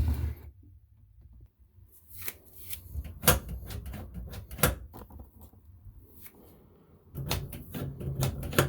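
Scattered clicks and knocks of small metal drain parts being handled and fitted under a bathroom sink, a few spaced strikes and then a quicker cluster near the end.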